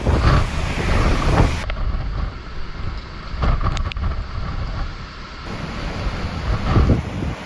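Typhoon wind gusting hard against the microphone: a deep, rough rumble that surges several times, loudest near the start and again about seven seconds in.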